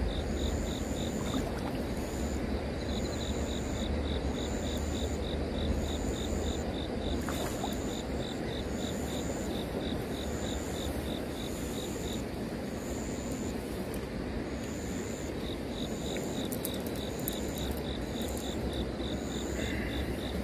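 Insects calling: a short high chirp repeating about once a second, and a fast pulsing trill from a second insect that stops about a third of the way in and returns near the end, over steady background noise.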